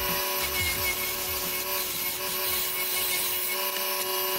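WEN 3420 benchtop wood lathe running with a steady motor whine while a gouge cuts a spinning oak spindle, making a continuous scraping cut.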